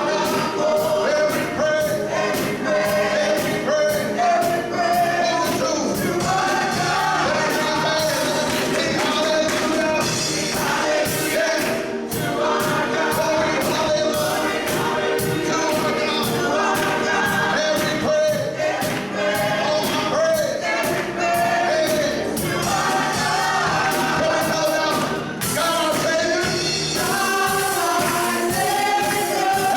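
Gospel choir singing with a full band, with drums keeping a steady beat.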